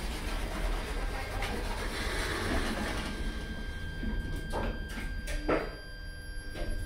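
KONE Monogoods goods lift: the car doors slide shut, then a steady whine from the lift's drive motor sets in over a low hum as the car starts moving. A few sharp clicks come about two thirds of the way through.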